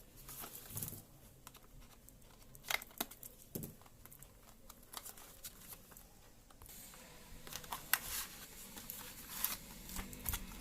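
Packaging and a USB cable being handled, with crinkling and rustling and scattered small clicks and taps. The handling gets busier and more continuous in the last third.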